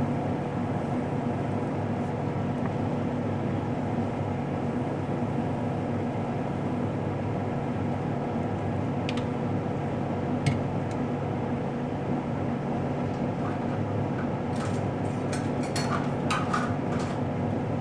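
Steady machine hum, like a running fan or appliance motor, with a faint hiss. Near the end come a few light clicks and taps, such as utensils or the squeeze bottle on the stove.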